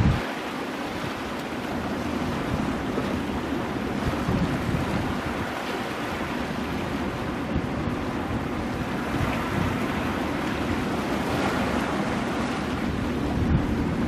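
Ocean waves breaking and washing over coastal rocks, a steady rushing surf, with wind buffeting the microphone in low rumbles.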